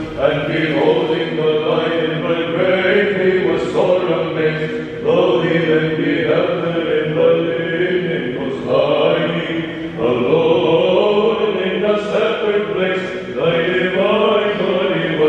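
Eastern Orthodox liturgical chant: voices chanting a melody continuously over a held low note.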